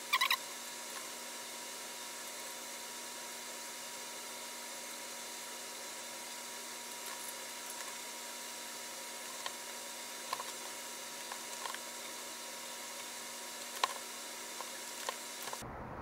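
Steady faint hiss and hum, with a brief squeak right at the start and a few light clicks and taps in the second half as a bicycle wheel and its disc-rotor bolts are worked on by hand.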